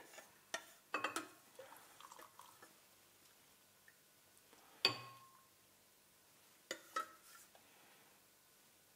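Metal ladle knocking and clinking against a stainless steel saucepan while hot broth is ladled out, with a few light knocks early on and one sharper ringing clink about five seconds in, then two more quick clinks.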